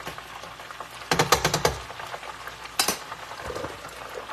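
Chicken wings deep-frying in a pot of hot oil, a steady bubbling sizzle. About a second in there is a quick run of clicks and knocks, and one more sharp click comes just before the three-second mark.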